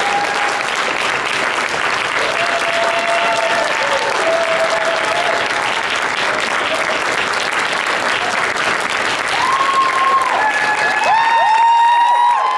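Audience applauding, with held whoops and cheers over the clapping that are loudest near the end.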